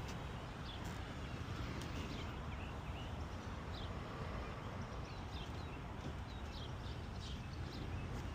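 Small birds chirping in short, scattered calls over a steady low rumble, with a few light knocks.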